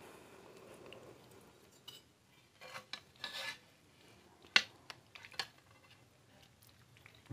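A metal spoon scraping and clinking against the side of a metal kadai of thick curry: a scrape about three seconds in, then one sharp metal-on-metal clink halfway through, the loudest sound, followed by a few lighter taps.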